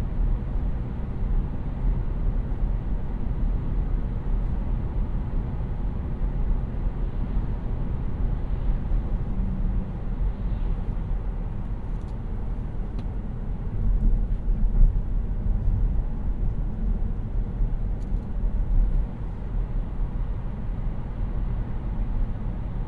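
2018 Kia Niro 1.6 GDi Hybrid driving along: a steady, low rumble of road and tyre noise, swelling slightly about two thirds of the way through.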